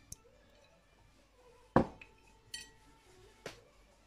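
Spoon and plate clinking against a glass mixing bowl as ginger-garlic paste is scraped in: a few sharp knocks, the loudest just under two seconds in, one followed by a brief ringing.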